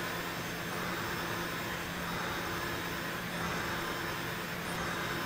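ShopSabre CNC router facing an acetal (Delrin) sheet with a shear hog cutter: a steady spindle and machine hum with a light cutting noise underneath. The cut is so light that you can barely tell it is cutting, the sign of a good facing pass that throws small, even chips.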